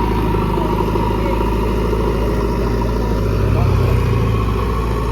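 JCB machine's diesel engine running steadily with a fast even throb, its note swelling slightly about three and a half seconds in as it takes more load.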